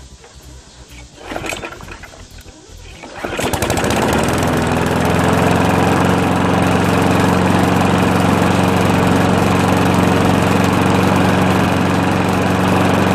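Weed Eater push mower's small single-cylinder engine being pull-started: a short rasp about a second and a half in, then the engine catches about three seconds in and runs at a steady speed. The recoil starter has just been freed of a broken flywheel screen that was jamming it.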